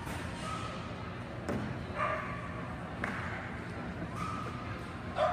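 A dog barks in short calls about once a second while running an agility course, with a sharp thud near the end.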